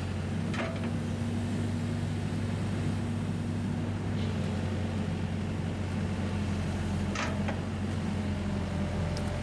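An engine or motor running steadily with a low, even hum, with a couple of faint clicks, one near the start and one about seven seconds in.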